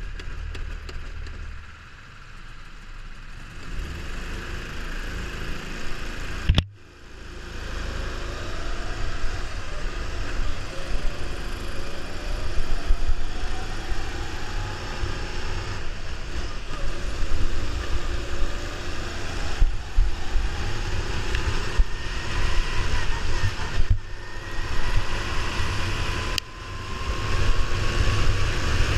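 Go-kart engine running under the driver, quieter at first, then pulling with its pitch climbing slowly over long stretches as the kart gathers speed. Wind buffets the onboard microphone, and there is one sharp click about seven seconds in.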